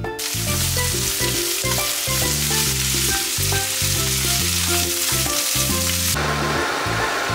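Sliced onion and other vegetables sizzling in hot oil in a non-stick frying pan as they are stir-fried with a wooden spatula. About six seconds in, the sizzle cuts to a duller, steadier rushing sound.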